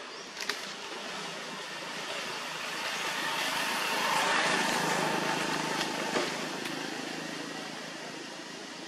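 A motor vehicle passing by: a noisy rush that swells for a few seconds, peaks about halfway through, and fades away. A couple of faint clicks come near the start and again past the middle.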